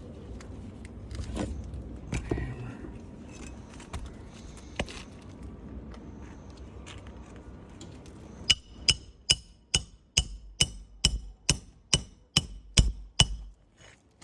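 Hammer driving roofing nails: about a dozen sharp, ringing strikes, a little over two a second, in the second half. Before that, light scraping and a few knocks from handling the shingle.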